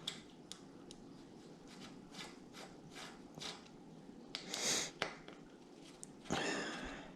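Faint scattered clicks and taps of a hex key working the bicycle stem and headset top-cap bolts, with two short hissing noises, about four and a half and six and a half seconds in.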